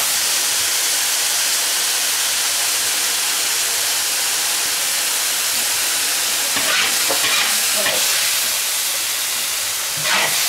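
Shredded cabbage and vegetables stir-frying in a large wok: a steady loud sizzle, with a long metal spatula scraping and tossing the food against the wok now and then.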